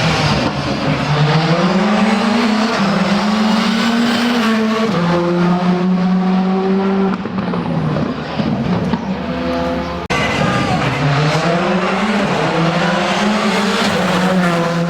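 Rally car engine revving hard through the gears, its pitch climbing and then dropping at each upshift. About ten seconds in the sound breaks off abruptly and another run of rising revs begins.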